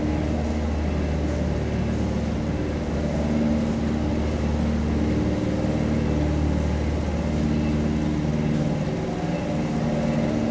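Jungle Cruise tour boat's motor running steadily, a low drone with a shifting pitched note above it.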